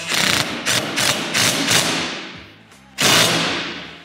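Cordless impact driver hammering as it runs down the lower windshield-mount bolt with a socket: one run of about two and a half seconds, then a second, shorter burst about three seconds in that tails off.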